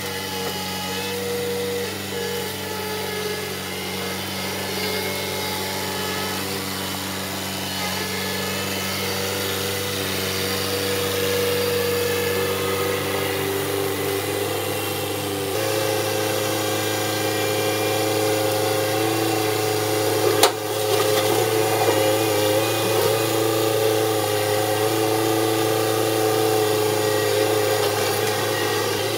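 Kubota B3030 compact tractor's three-cylinder diesel engine running steadily while its front loader works brush, with a change in engine note partway through. A single sharp knock about two-thirds of the way through.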